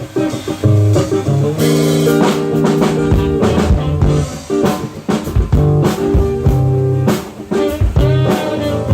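Instrumental band music with no singing: guitar chords over a drum kit, with drum hits and held chords.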